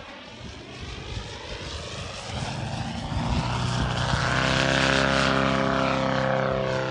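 Large RC Yak 54 aerobatic plane's Valach 420 petrol engine and propeller running. It grows louder as the plane makes a low pass, is loudest about five seconds in, and drops in pitch as the plane passes and climbs away.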